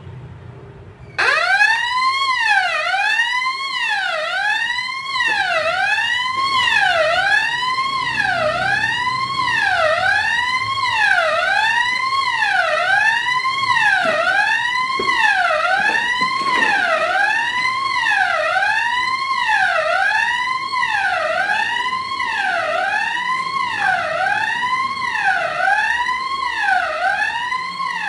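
Electronic fire alarm sounder being tested, switching on abruptly about a second in and sounding a loud, repeating rising sweep tone, about one sweep a second.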